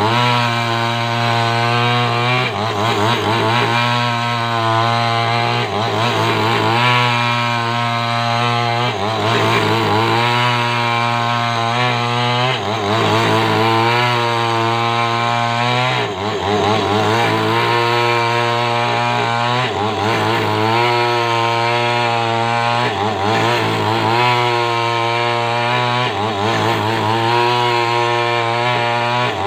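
Two-stroke chainsaw running at high revs, cutting a coconut-palm trunk into beams. The engine pitch sags and picks up again every three seconds or so as the chain bites into the wood and eases off.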